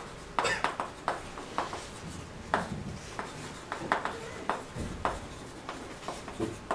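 Chalk writing on a chalkboard: an irregular run of short taps and scratches as each stroke is made.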